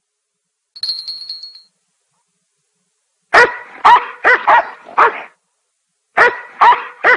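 A cartoon dog barking in two quick runs, about five sharp barks and then four more. About a second in there is a short high-pitched tone before the barking starts.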